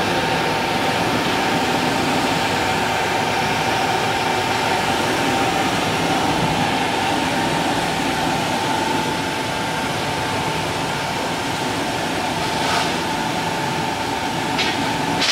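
Woodworking CNC router with a 9 kW spindle running alongside its bag dust collector: a steady whine over a constant rushing drone, with a few light clicks near the end.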